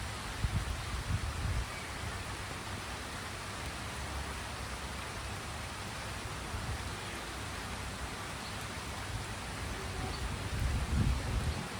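Steady rain falling, with low rumbles of thunder swelling in the first second or so and again near the end.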